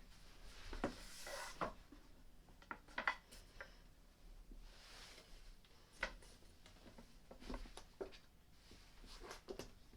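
Scattered light knocks and clicks with a soft rubbing or scraping now and then: wooden furniture panels being handled, as shelves are pushed onto wooden dowels in a side panel.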